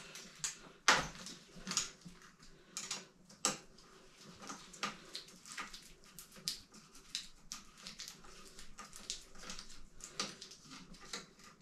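Irregular small clicks and metallic knocks, with handling noise from gloved hands, as a hex key works loose the tight mounting bolt of a gravel bike's rear derailleur. The sharpest knock comes about a second in.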